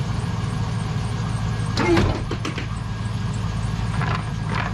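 GMC pickup's gasoline engine idling steadily, with a few short knocks about two seconds in and again near the end.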